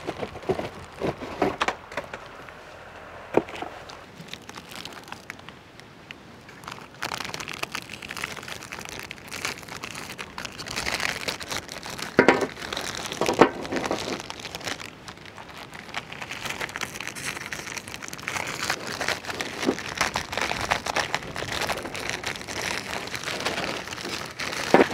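Plastic Oreo cookie wrappers being torn open and crinkled by hand, with irregular clicks as the cookies drop out onto a steel tray.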